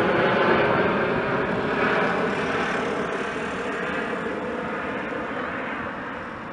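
Twin-engine business jet flying away overhead: a steady jet rush with a low hum that fades gradually as it recedes.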